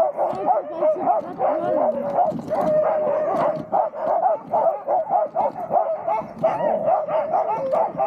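A team of sled huskies barking, yelping and howling all together, many short high calls overlapping without a break: the excited noise sled dogs make when held back, eager to run.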